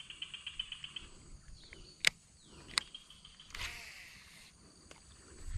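Outdoor ambience of insects chirping in rapid pulsed trains over a steady high-pitched drone, with two sharp clicks and a brief rush of noise past the middle.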